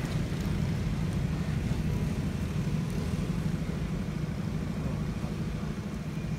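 A steady low engine-like rumble.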